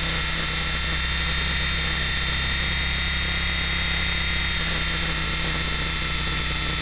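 ESKY Belt CP V2 RC helicopter's electric motor and rotor running steadily in flight, heard from a keychain camera mounted on the helicopter: a steady high whine over a low drone.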